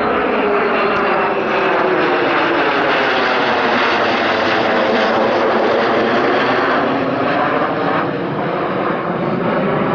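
Fighter jet flying low past: a loud, steady jet roar with a slow swirling sweep through it.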